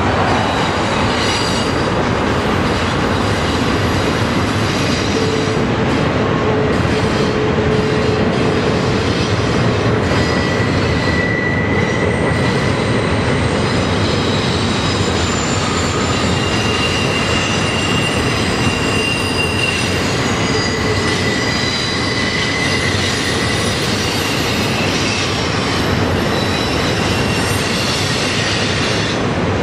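Union Pacific double-stack intermodal freight train rolling across a steel truss bridge: a steady rumble of wheels on rail, with thin high wheel squeals that come and go.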